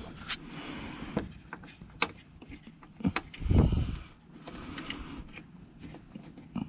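Scattered clicks and knocks of hands working among the plastic headlight and fender parts, with a louder dull thump about three and a half seconds in.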